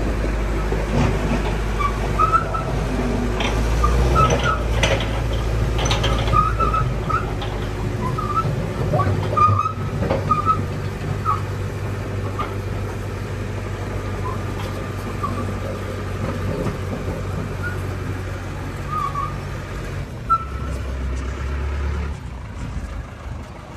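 Tractor engine running steadily, with short high chirps scattered over it, thickest in the first half.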